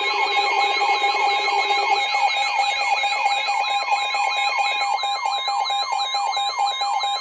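Several weather alert radios sounding their alarms together: steady alert tones layered with a fast warble and rapidly repeating falling siren sweeps. A lower buzzing tone drops out about two seconds in.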